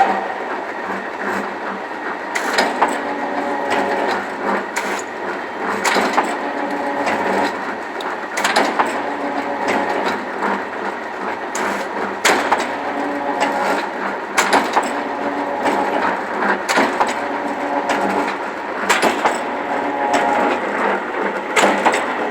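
STD-9 mechanical guillotine shear running under test after repair: a steady motor and drive hum, with the blade ram stroking about every two seconds, each stroke a sharp knock.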